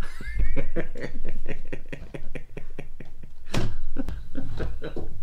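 Lego Technic plastic pieces clicking and rattling in quick succession as they are handled and pressed together, with one louder knock about three and a half seconds in.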